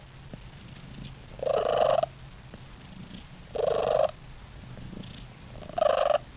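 Domestic cat purring steadily, broken by three loud, short calls about two seconds apart.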